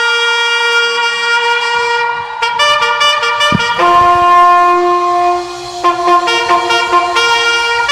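A trumpet sounding one long held note, then a series of held notes at changing pitches from about two and a half seconds in.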